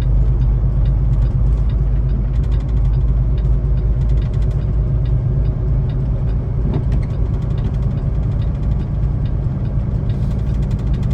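Semi truck's diesel engine running steadily in sixth gear, a deep, even drone heard from inside the cab, with faint rapid ticking over it.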